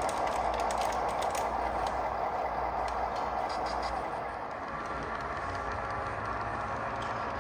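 Model train running on layout track, hauled by three BNSF-painted model diesel locomotives: a steady hum with light clicks and rattles in the first couple of seconds.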